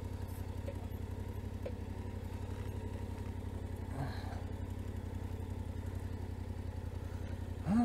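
Yamaha Ténéré 700's parallel-twin engine idling steadily with a low, even pulse.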